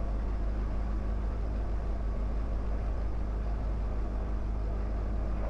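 Diamond DA20's piston engine and propeller idling steadily, heard from inside the cabin as an even, low drone.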